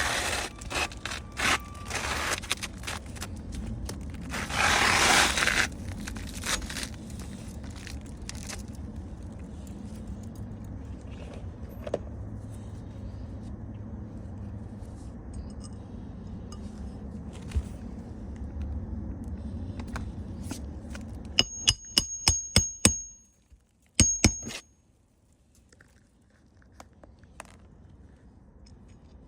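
Asphalt roof shingles being worked loose and handled, with rough scraping and clatter in the first few seconds. Later comes a quick run of about six sharp metal strikes with a high ringing, then one more.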